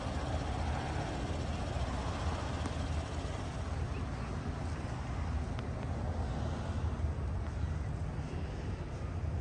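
Outdoor city ambience: a steady low rumble of street traffic.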